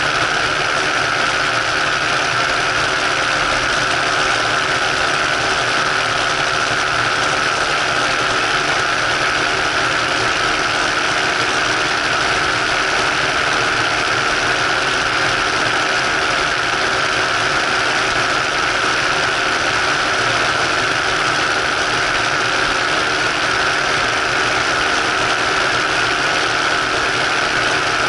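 Ultralight trike's engine and propeller running steadily in cruise flight, with a constant rush of wind over the airframe.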